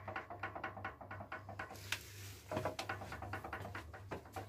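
Rapid, even clicking of a hand ratchet undoing bolts on the engine, a short hiss about two seconds in, then more scattered clicks and knocks.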